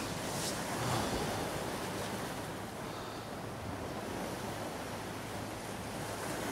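Sea surf washing on the shore, a steady rushing hiss of waves.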